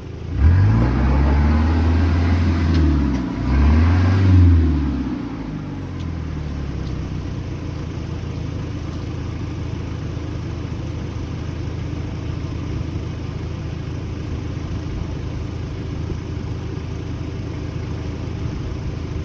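Four-wheel drive's engine revved hard twice in quick succession, its pitch climbing each time, then dropping back after about six seconds to a steady low-speed running note.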